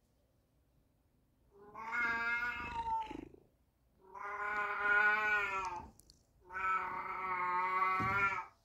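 Calico cat calling for attention with three loud, long, drawn-out meows, each nearly two seconds long.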